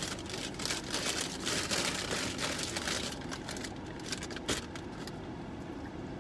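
Paper takeout bag rustling and crinkling as food is packed into it, busiest in the first three seconds and then quieter, with one sharp click about four and a half seconds in.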